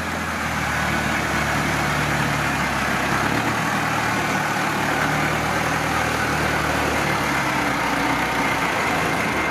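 Engine of a small tracked farm carrier running steadily while the machine drives off a barge ramp onto the bank, its low note shifting a few seconds in and again near the end.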